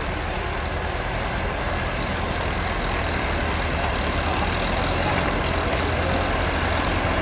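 Engine of an International loader running steadily, slowly growing louder.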